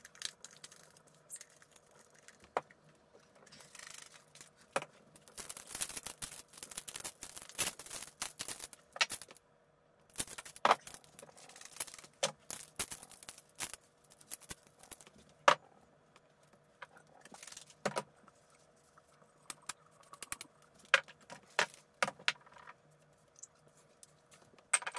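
Glass jars and a glass bottle full of marbles being handled and wiped with a cloth: the marbles rattle and clink inside the glass, in two longer stretches of rattling, with scattered sharp glass clinks in between.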